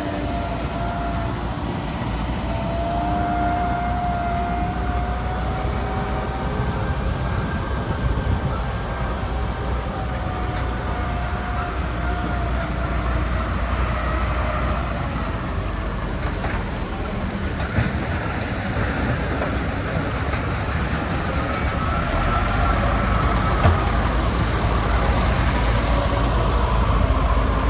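Heavy machinery running steadily, with a whine that wavers in pitch and a few sharp knocks.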